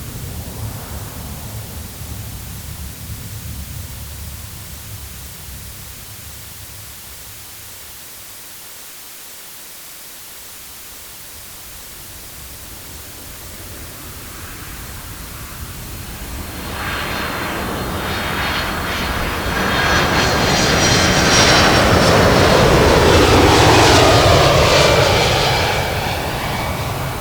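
Airplane flying past: its engine noise swells from faint to a loud peak with a high whine that slides down in pitch, then begins to fade. A low rumble dies away over the first few seconds.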